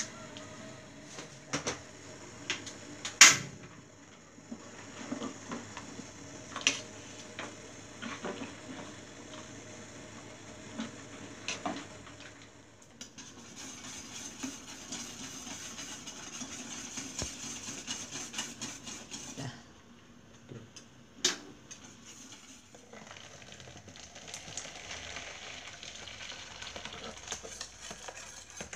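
A metal spoon stirring a stainless steel pot of liquid on the stove, with scattered clinks and knocks against the pot. The loudest knock comes about three seconds in. Later there are stretches of steady hiss from the pot and stove.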